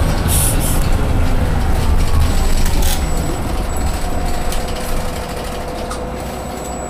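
Cabin sound inside a Solaris Urbino 18 articulated bus: a low engine and drivetrain rumble with a whine that drops in pitch. The whole sound grows quieter from about halfway through as the bus slows for a stop.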